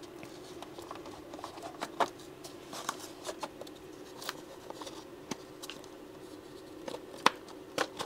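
Scattered light clicks and taps as hands push small servos into their slots in a foam RC plane fuselage and handle the fuselage, the sharpest click about seven seconds in. A faint steady hum runs underneath.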